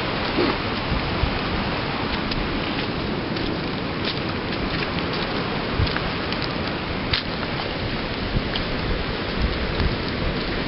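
Steady rushing noise of fast-moving floodwater, with scattered faint clicks.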